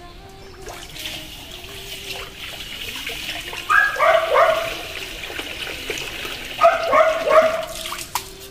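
A dog barking in two short runs of three or four barks, about four seconds in and again about seven seconds in, over a steady watery hiss from the covered wok of rice boiling.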